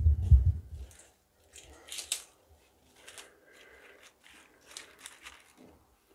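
A low rumbling thump in the first second, then fresh lettuce leaves crinkling and rustling in short, scattered bursts as hands tuck and arrange them on a plate.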